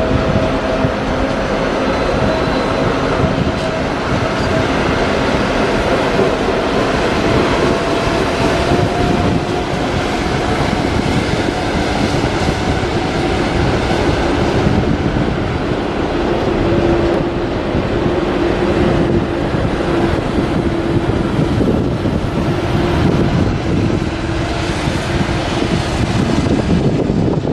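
Train running steadily, a dense rumble with a faint steady whining tone in it.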